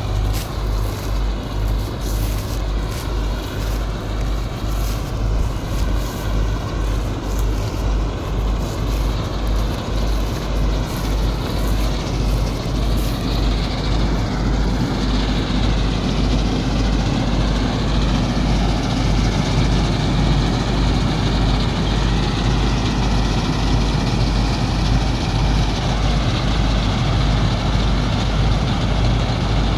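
Combine harvester running steadily, a heavy engine with a low, rapid throb; a hiss on top fades out about halfway through.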